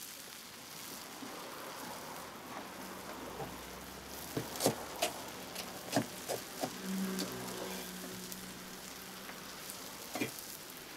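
Food frying in a hot wok: a steady sizzling hiss, with sharp metal clinks scattered through the middle and a brief low hum about seven seconds in.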